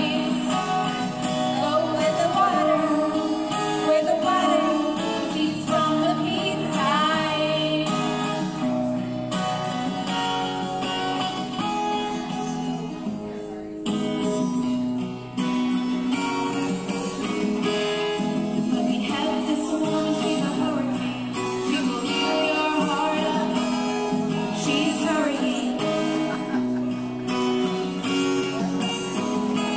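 A woman singing a song live with strummed acoustic guitar accompaniment, the music dropping back briefly about halfway through.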